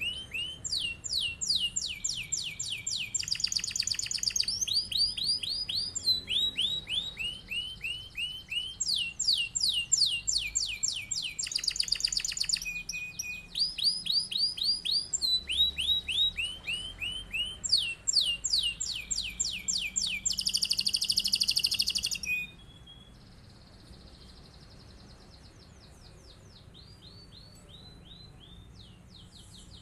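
Domestic canary singing a long rolling song of fast repeated trills, phrase after phrase with hardly a break. About three-quarters of the way through the song suddenly turns much fainter and carries on quietly.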